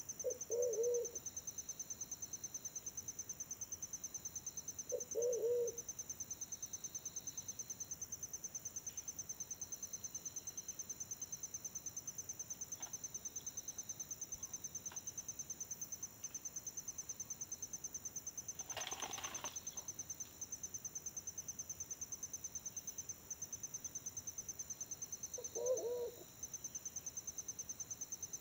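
A pigeon gives short, low coos three times: two about five seconds apart at the start, and one near the end. Under them runs a steady high-pitched insect trill, with a brief rustle about two-thirds of the way in.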